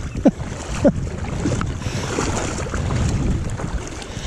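Water rushing and sloshing around the legs of someone wading through a shallow river current, with wind on the microphone. There are two short squeaks near the start.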